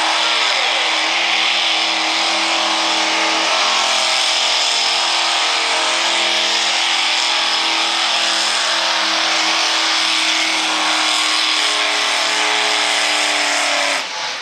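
Open-rail mini rod pulling tractor's engine held at full throttle under load as it drags the weight-transfer sled, a loud, steady high-revving note with only small shifts in pitch. It cuts off abruptly near the end as the pull ends.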